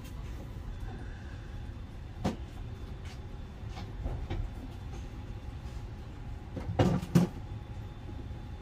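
Light-rail car standing at an underground platform, its equipment giving a steady low hum. A single knock comes about two seconds in, and a quick cluster of louder knocks comes near seven seconds.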